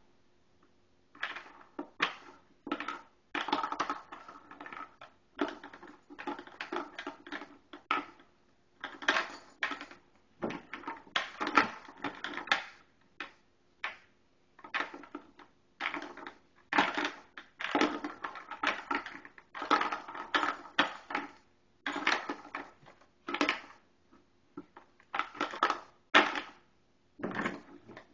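Dog crunching ice cubes from a bowl: irregular bursts of chewing with short pauses between them.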